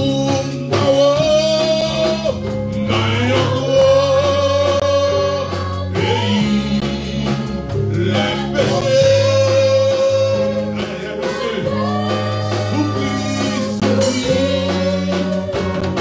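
Gospel praise-and-worship song: voices singing long held notes over sustained bass chords, with instrumental accompaniment.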